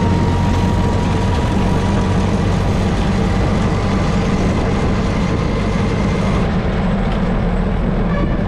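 Auto-rickshaw's small engine running steadily as the three-wheeler drives along, heard from the passenger seat inside the open cabin.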